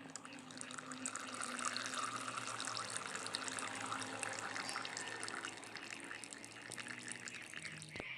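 Engine oil pouring in a steady stream and splattering into a container, getting louder about a second in and easing off somewhat near the end.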